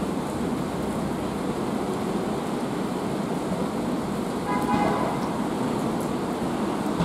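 Steady city rain mixed with the hiss of road traffic. About four and a half seconds in, a brief pitched sound cuts through for under a second.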